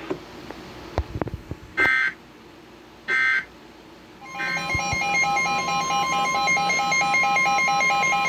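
Emergency Alert System weather radio tones: two short electronic data squawks mark the end of one alert. About four seconds in, a steady high-pitched alert tone starts, with a fast alternating beeping pattern laid over it, signalling the start of the next warning.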